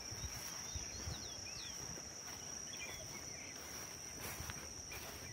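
Insects keeping up a steady high-pitched chirring, with a few short bird chirps over it in the first half.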